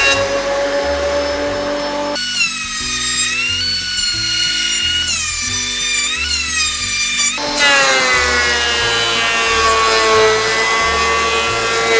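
Benchtop thickness planer running as a board is fed through, its motor whine dipping in pitch as the cutter takes wood off to even out the board's thickness. Background music with a steady beat plays under it.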